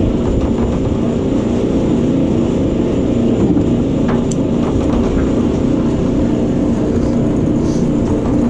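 A boat's engine running steadily, an even drone that holds one pitch with no revving.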